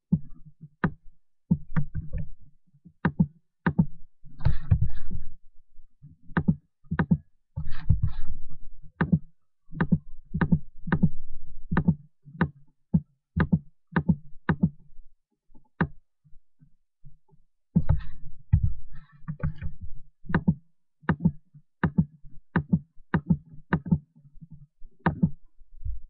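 Irregular series of sharp clicks and dull taps, about one or two a second, from working a computer's input device, with a few brief stretches of low rumble and rustle.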